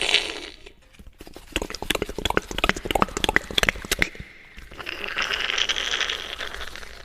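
Beatboxer's mouth sound effects imitating cocktail making: a short hiss, then about three seconds of quick, uneven clicks and rattles, then a long hiss of about two seconds.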